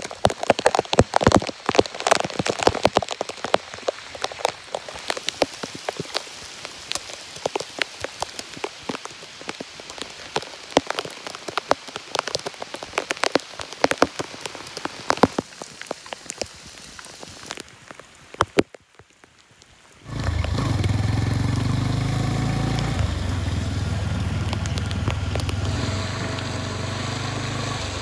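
Heavy rain, with a dense, irregular patter of drops striking close to the microphone as sharp ticks. The patter stops abruptly about eighteen seconds in. A couple of seconds later a steady low rumble of a motorcycle riding in the rain takes over.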